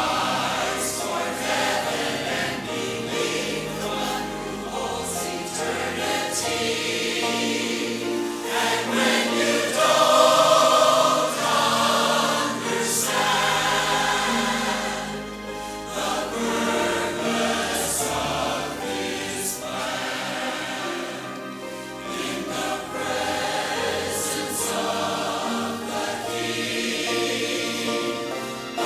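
Large mixed church choir singing a sacred anthem in full harmony with long held notes, swelling to its loudest about ten seconds in.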